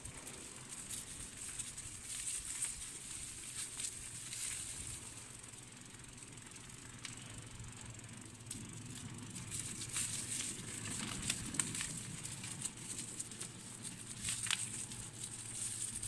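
Movement along a gritty, leaf-strewn boardwalk path: irregular crunches and clicks over a steady hiss, with a faint low hum underneath.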